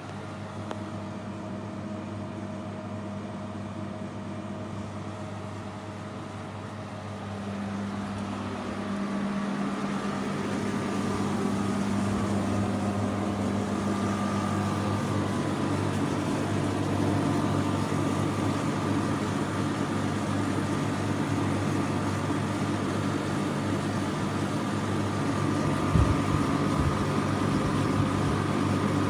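BLACK+DECKER BXAC40023GB portable air conditioner running with a steady mechanical hum that grows louder about eight seconds in and then holds steady, with a few low knocks near the end.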